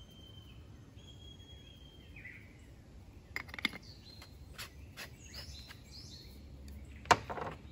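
Wild birds singing, with clear whistled notes. Several light handling clicks follow, then one sharp knock near the end.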